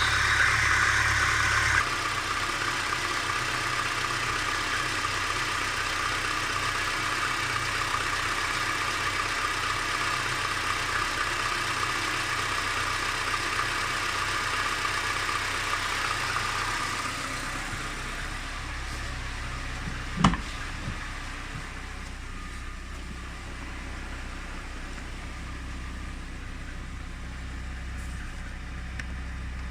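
Car engine idling while still warming up, with a ringing knock that the owner suspects is piston slap. Its sound drops somewhat about two-thirds of the way through, and a single sharp click comes shortly after.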